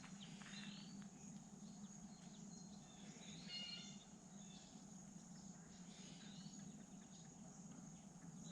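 Faint outdoor ambience: scattered short bird chirps over a steady high insect drone.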